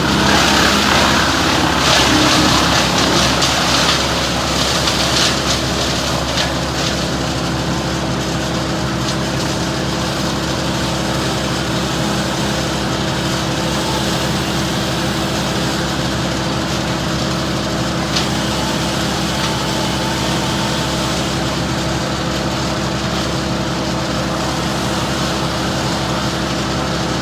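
A small engine running steadily at an even speed, louder and noisier for the first few seconds before settling to a constant drone.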